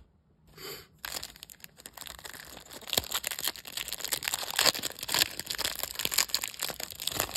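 Clear plastic wrapper of a trading card pack being torn open and crinkled by hand: a dense crinkling crackle full of sharp ticks, starting about a second in.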